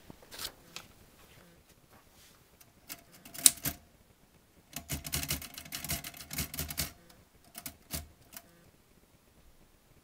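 Royal manual typewriter clacking as its keys are struck: a few scattered strikes, one loud strike about three and a half seconds in, then a quick run of keystrokes lasting about two seconds, and a few last strikes before it stops.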